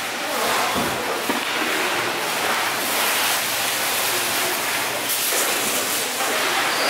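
A steady rushing hiss, a little louder from about three seconds in.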